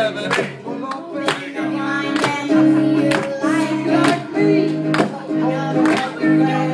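A girl and a man singing together to a strummed acoustic guitar. Strong chord strokes fall about once a second under the held sung notes.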